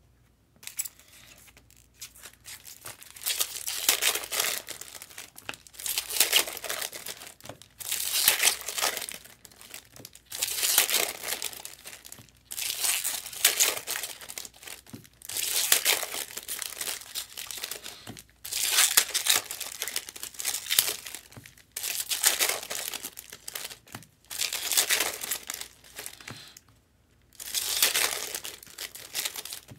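Trading-card pack wrappers crinkling as packs are handled and opened, in about a dozen separate bursts of one to two seconds each.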